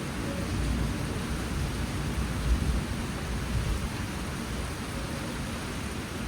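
Steady monsoon rain falling, an even hiss with a low rumble underneath that swells briefly about two and a half seconds in.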